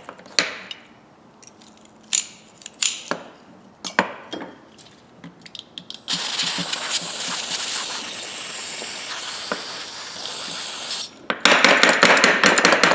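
Steel grooved pliers clinking as they are handled, then a steady aerosol spray hiss for about five seconds, aimed at the pliers' grimy, sticking joint, and a louder, rougher spray-like noise near the end.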